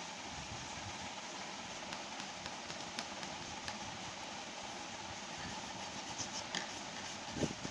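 Scratchy rubbing of black colouring scribbled back and forth across a sheet of paper, steady with small clicks and a louder tap near the end.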